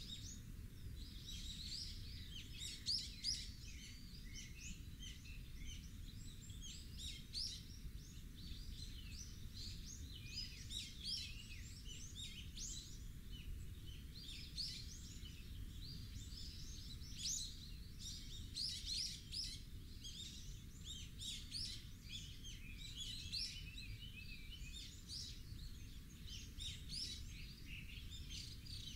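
Many small birds chirping over and over, dense short high calls with no pause, over a low steady rumble.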